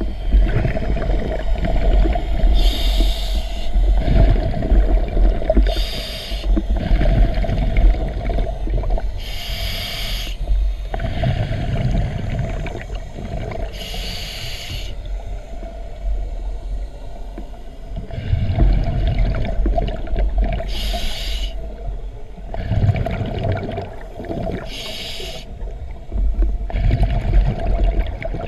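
Scuba diver breathing through a regulator underwater: a rush of exhaled bubbles about every three to four seconds, over a steady low hum.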